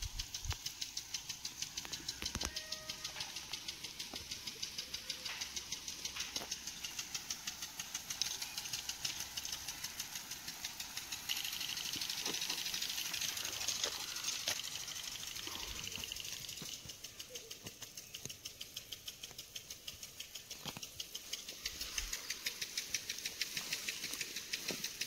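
Irrigation impact sprinkler ticking in a fast, even rhythm over the hiss of its water spray. The spray hiss grows louder for a few seconds around the middle.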